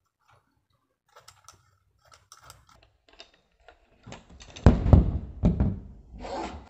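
Light clicks of small plastic camera-mount parts being handled, then from about four seconds in the loud crinkling and rustling of a clear plastic bag being handled.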